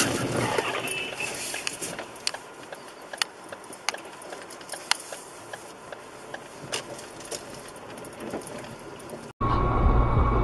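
A car collision on a highway: a loud crash at the very start, then a crackly hiss with scattered sharp clicks as the camera car drives on. Near the end the sound cuts abruptly to a steady low rumble of road and engine noise inside another car.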